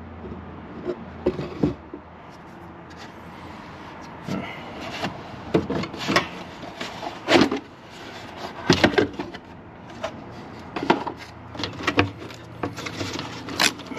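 Irregular clicks, knocks and light clatter of hand tools and loose parts being handled while working on a car's engine bay.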